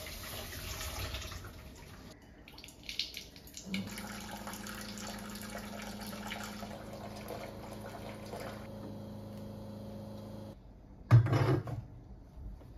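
Water running briefly, then a small appliance hums steadily for about seven seconds and cuts off suddenly. About a second later comes a loud short knock.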